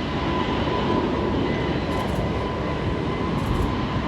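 Jet engine noise from an Airbus A321neo's Pratt & Whitney PW1100G geared turbofans: a loud, steady rushing sound with a thin, steady high whine running through it.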